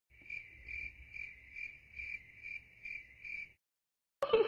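Cricket chirping: about eight even chirps, roughly two and a half a second, that stop abruptly after about three and a half seconds. It is a cut-in sound effect, the comic 'awkward silence' cue.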